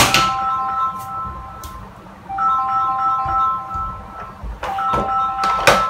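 Music with a sustained three-note chord, held about two seconds at a time and repeating. A loud knock right at the start and another near the end come from a portable karaoke speaker being handled and set down.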